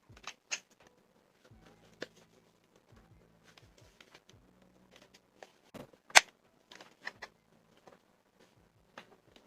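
Scattered small plastic clicks and taps from handling mechanical keyboard switches during a switch swap, with one sharper, louder click about six seconds in.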